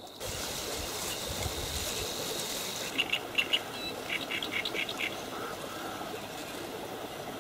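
A bird calling a quick run of short, high chirps a few seconds in, over a steady background hiss.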